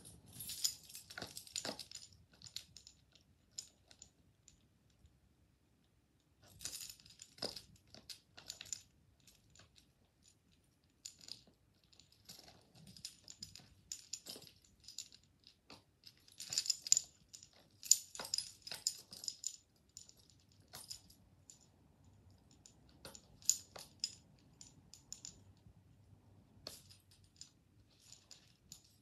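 Packaging being handled and opened by hand: irregular bursts of crinkling and clicking, separated by short pauses.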